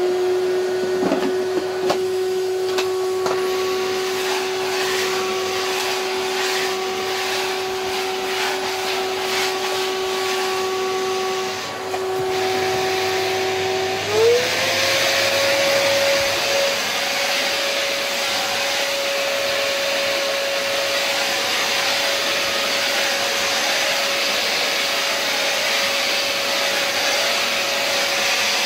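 Philips Universe FC9004 bagged vacuum cleaner's 1700 W motor running steadily with a whine and a rush of air. About fourteen seconds in, the power dial is turned up: the whine glides up in pitch and the air rush grows louder, then both hold steady at the higher setting.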